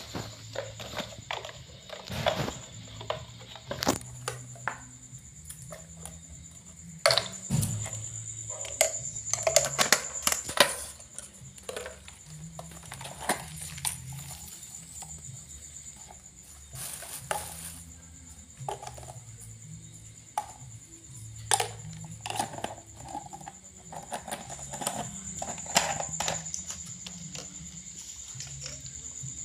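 Scattered clicks, knocks and clinks of a metal spoon against a ceramic bowl and plastic spice jars being handled while minced meat is seasoned, over quiet background music and a steady high-pitched tone.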